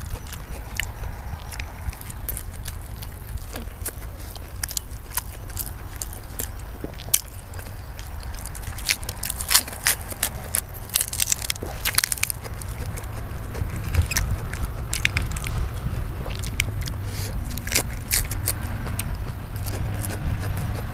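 A person eating close to the microphone: chewing and biting, with many irregular sharp mouth clicks and smacks, over a steady low rumble.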